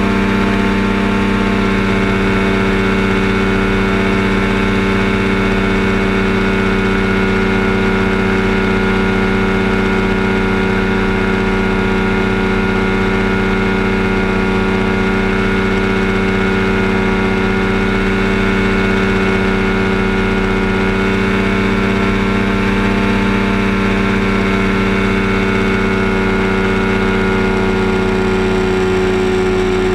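Kolb Firestar II ultralight's engine running steadily at takeoff power through the takeoff roll and climb-out, a loud, even note that holds its pitch.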